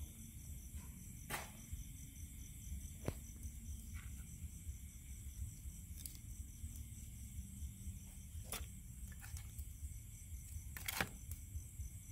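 A few short, sharp clicks of scallop shells knocking together as raw scallops are handled in a plastic bowl, spaced irregularly, with the loudest near the end. A faint low background rumble lies underneath.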